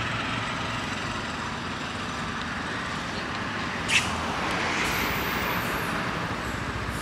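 Steady outdoor hiss of distant road traffic, with one brief sharp sound about four seconds in.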